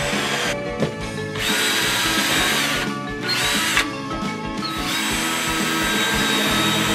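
Cordless drill driving a screw into a wooden plank, its motor whining in several runs with short stops between, the longest near the end, over background music.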